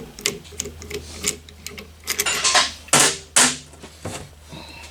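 Hand tools and metal engine parts clicking and clinking as they are handled, with two louder metal clanks about three seconds in, over a steady low hum.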